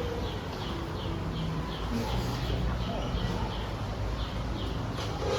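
Quiet classroom ambience: a short high chirp repeating evenly about three times a second, over a low murmur of children's voices.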